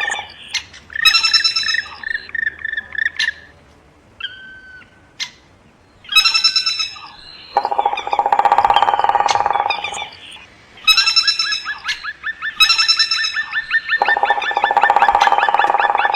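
Songbirds singing in varied phrases: whistled notes, fast trills and a long run of rapidly repeated notes near the end. A lower buzzing rattle comes in twice, each time for about two seconds.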